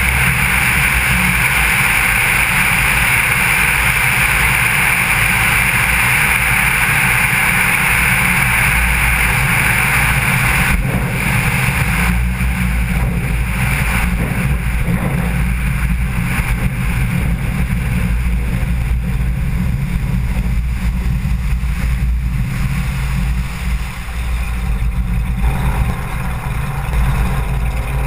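Maule M4 floatplane's piston engine and propeller running, with air rushing over the wing-tip camera during the low approach over water. About 11 seconds in, the rushing drops away as the floats settle onto the water, and the engine runs on at lower power with water rushing past the floats while it taxis.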